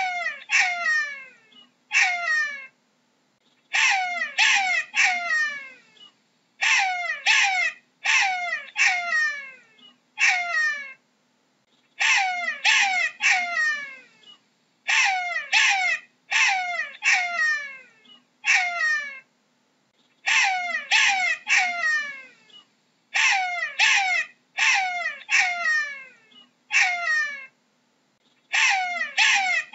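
Jackal yelping: short, high-pitched calls that slide steeply down in pitch, coming in quick runs of two to four, with pauses of about a second between runs.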